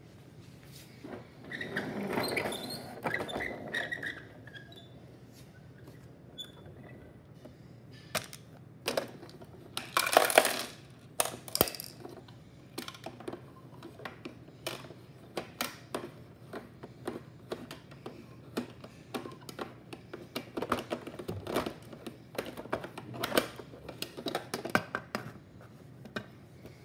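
Many small plastic clicks and knocks as a toy garbage truck and toy wheelie bins are handled and moved on a wooden floor. There is a longer scraping noise about two seconds in and a louder clatter about ten seconds in.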